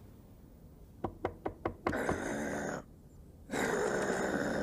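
A quick series of about five knocks on a door, a visitor asking to be let in, followed by two longer, louder sounds about a second apart.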